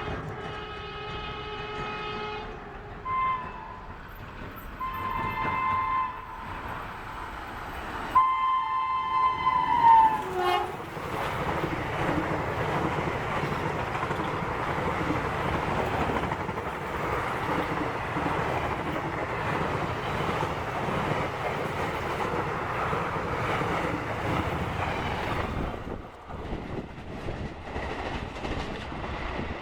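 Indian Railways WAP-4 electric locomotive sounding its horn: a long blast, a short toot, then two more blasts, the last and loudest falling in pitch as the locomotive passes. The express coaches then rush past with steady wheel-and-rail noise that drops away near the end.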